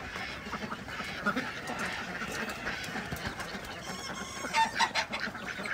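A flock of white domestic ducks feeding on azolla from a metal bowl: busy, rapid clicking and dabbling of bills in the wet greens, with a few loud quacks about four and a half seconds in.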